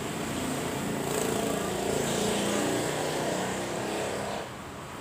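A motor vehicle's engine running, its drone building up and then dropping away about four and a half seconds in.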